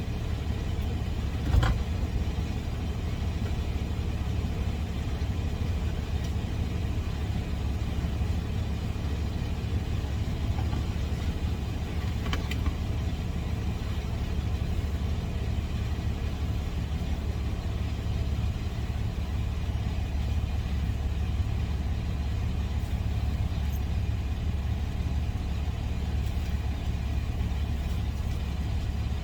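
Engine idling steadily with a low, even hum. A single knock comes about a second and a half in, and a faint click comes around twelve seconds.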